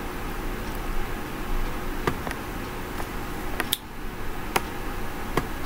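Computer mouse clicking a handful of times at uneven intervals over a steady hiss and hum of room noise.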